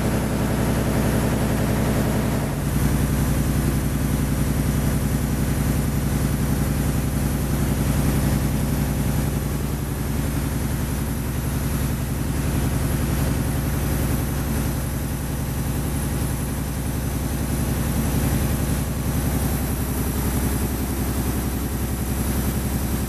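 Mill machinery running, a steady low hum with no change in pitch or rhythm.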